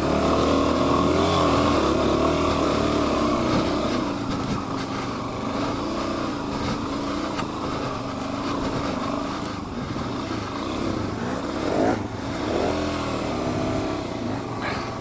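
Suzuki DR-Z400 dual-sport motorcycle's single-cylinder four-stroke engine running, its revs rising and falling with the throttle, with a sharper rev about 12 seconds in.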